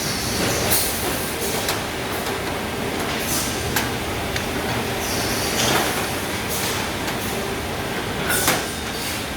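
Steady, loud machine running noise, with brief high squeals or scrapes every second or two.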